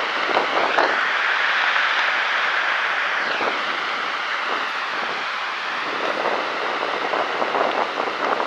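Steady rushing noise, with a sweeping change in tone about a second in and again near three seconds.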